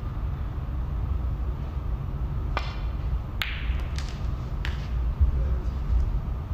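Snooker cue striking the cue ball, followed by a few sharp clicks of balls hitting each other and the cushion, the loudest about a second after the strike. A steady low hum runs underneath.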